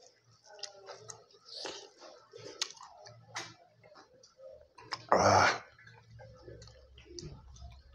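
Close-up eating sounds of a person eating rice and fish curry by hand: fingers mixing rice on a steel plate, chewing and small mouth clicks. A brief, much louder noisy sound comes about five seconds in, as the bowl of curry broth is picked up.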